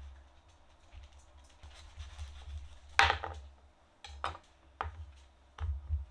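Kitchen handling sounds: an acorn squash half and a spoon knocking and scraping on a cutting board, a few sharp knocks with the loudest about three seconds in, over a low steady hum.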